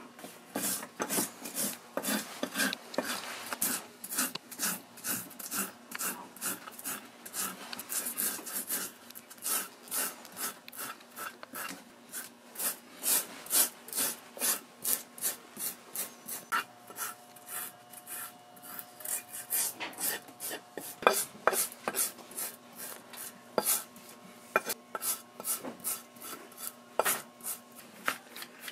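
Hand rasp filing down the cork filler on the bottom of a handmade boot, in repeated back-and-forth scraping strokes at about two a second.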